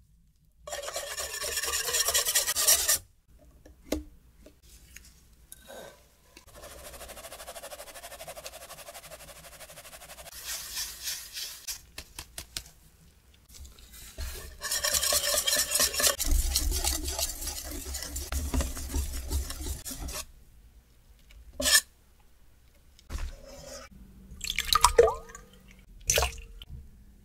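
Wire balloon whisk beating cake batter in a stainless steel bowl: rapid, rhythmic scraping and swishing in two loud bouts, the later one working cake flour and cocoa powder into the egg-yolk batter. A quieter rhythmic stretch lies between them, and a few short knocks and clinks come near the end.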